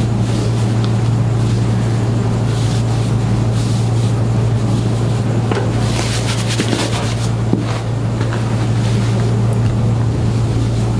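A loud, steady low-pitched motor drone, with a short run of faint ticking about six to seven seconds in.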